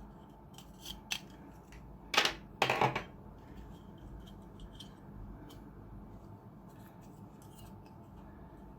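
Small hand tool working on a circuit board: scattered light clicks and two louder short scraping strokes about two and three seconds in, as old grease is cleared off the board.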